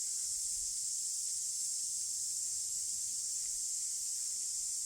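Summer chorus of cicadas: a steady, unbroken high-pitched drone.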